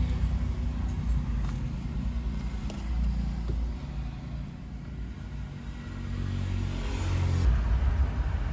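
Low rumble of a motor vehicle engine, rising and falling, loudest about seven seconds in.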